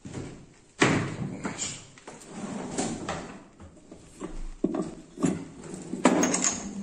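Handling noise in a machine shop: a series of irregular clunks and clicks as metal parts and tools are picked up and moved about on a valve grinding machine, the sharpest about a second in and again near the end.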